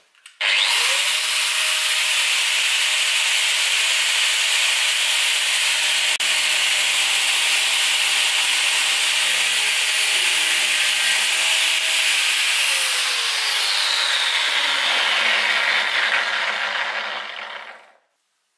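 Angle grinder with a thin cutting disc cutting into a 1045 steel bar held in a vise: a loud, steady grinding hiss of disc on steel. Near the end the whine sinks in pitch and then stops.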